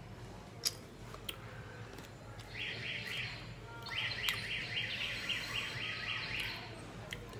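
A bird chirping in two quick runs of repeated high notes, a short run and then a longer one, about four notes a second. A couple of sharp clicks come in the first second or so.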